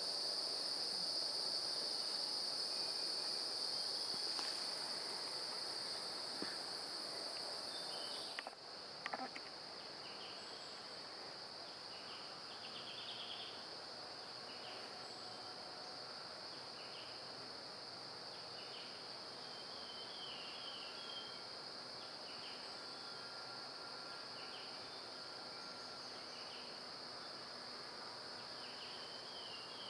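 Forest insects droning steadily at a high pitch. The drone drops suddenly about eight seconds in, and after that short chirps repeat about once a second.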